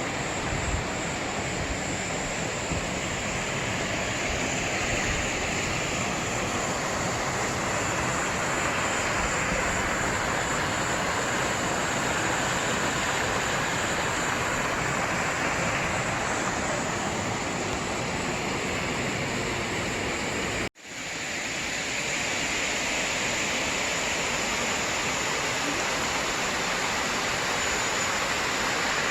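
A valley stream's water rushing in a steady, even wash, which cuts out for an instant about two-thirds of the way through and then carries on.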